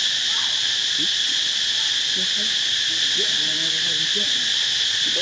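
A steady, loud, high-pitched insect drone, with a few soft, short, wavering calls over it.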